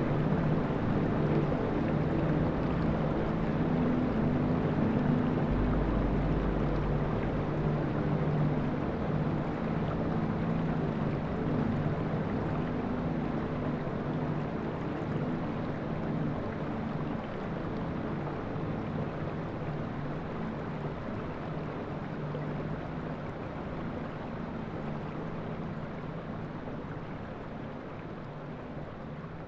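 A steady mechanical hum with a few held low tones over a wind-like hiss, slowly fading out.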